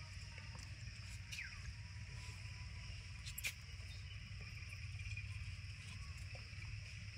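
Steady high drone of insects, with a single falling chirp about a second and a half in and a sharp click about halfway through.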